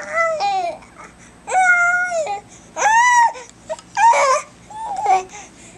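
Young baby vocalizing: five drawn-out, high-pitched vowel sounds, each under a second long, with short gaps between.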